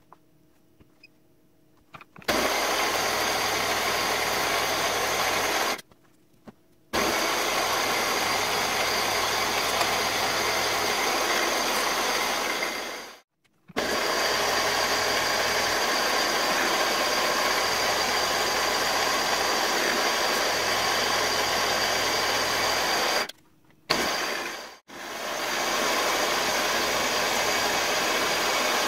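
Milling machine running, its end mill cutting an aluminium engine cylinder block: a loud, steady, hissing machining noise. It starts about two seconds in and drops out briefly three times.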